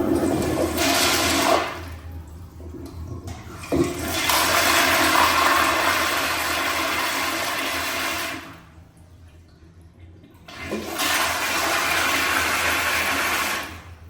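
Commercial flush valves flushing three times in a row, each a loud rush of water lasting a few seconds. The middle flush is the longest.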